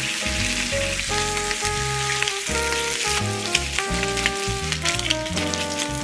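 Bacon sizzling in hot oil in a four-well frying pan, a steady hiss with scattered pops. A background melody plays over it.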